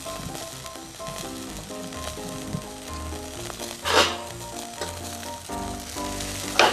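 Food sizzling on a grill net over a wood fire. Two sudden louder spits of sizzling come about four seconds in and again near the end, with background music playing throughout.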